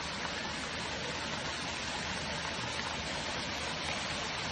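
A torrent of red wine from burst distillery tanks rushing down a street, a steady, even rushing like a fast stream.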